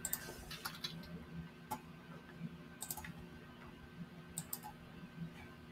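Faint, irregular clicks of a computer mouse, some in quick pairs, over a low steady room hum.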